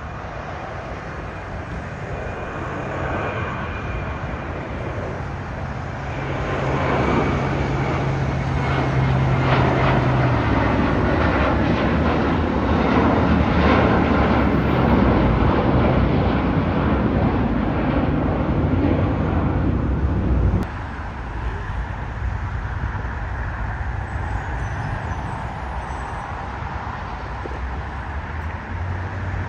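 Twin-engine jet airliner taking off and climbing out, its engine noise building to loud over several seconds, with a high whine sliding slowly down in pitch. About two-thirds through it cuts off suddenly to a quieter, steady engine drone from a wide-body jet taxiing.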